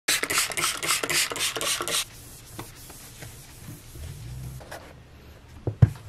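A loud scratchy pulsing noise, about five pulses a second, for the first two seconds, then quiet. Near the end come two sharp knocks as an iPad Air tablet is set down on a rubber work mat.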